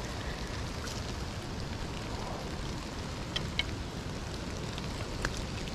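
Steady patter of rain falling on the pond and bank, with a few sharp drop-like ticks about three and a half seconds in and again near the end, over a low rumble.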